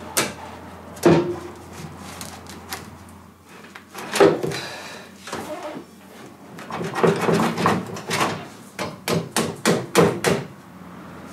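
Sheet-metal bracket being set into place on a skid steer's frame: clatter and knocks of metal on metal. A few single knocks come first, then a quick run of them in the second half.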